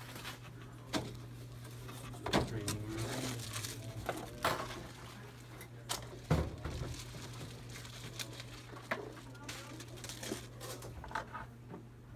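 Computer equipment and cardboard-and-plastic packaging being handled at a desk: scattered clicks, knocks and crinkling over a steady low hum, with the loudest knock about six seconds in.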